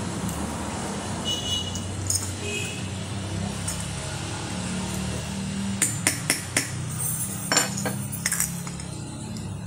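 A needle being pushed through the thin aluminium of a drink can to punch the burner holes of a can alcohol stove. It makes small sharp clicks as the point breaks through: four in quick succession, then a few more about a second later.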